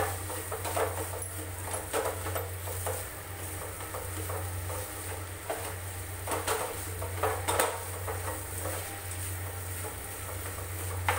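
Wooden spatula scraping and knocking against a steel frying pan in irregular strokes while stirring and pressing a thick mash of potato and raw banana as it fries, over a steady low hum.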